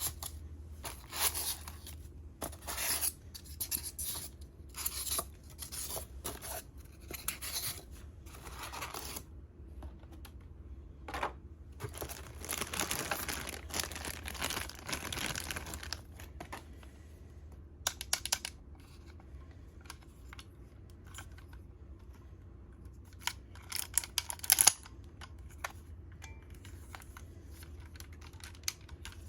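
Toy packaging being handled and unwrapped: repeated short tearing and rustling sounds, a longer stretch of crinkling a little before the middle, and a few sharp clicks later on.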